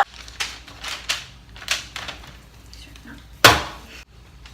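Kitchen handling sounds: several light knocks and clicks of utensils and dishes, then one sharp clatter about three and a half seconds in.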